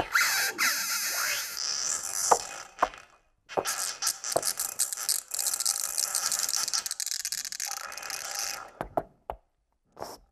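Glitchy electronic noise music: dense high-pitched crackling and scraping textures punctuated by sharp clicks, with sweeping glides in the first second or so. It cuts out abruptly to silence twice, a little after 3 seconds and again near the end.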